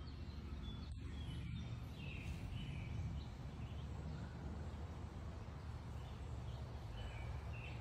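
Outdoor ambience: a few short bird chirps over a steady low rumble.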